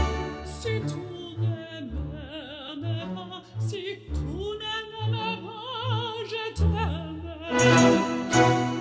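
Operatic music: a singer's voice with wide vibrato over orchestral accompaniment, with low bass notes pulsing evenly underneath. The music swells fuller and louder near the end.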